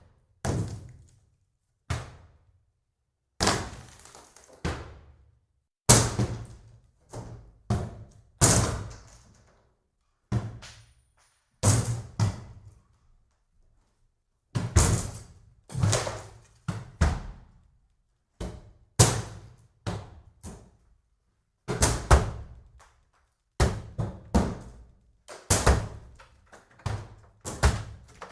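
Axe blows chopping into wooden boards and beams: a long run of heavy, irregular strikes, some landing in quick pairs, each fading fast.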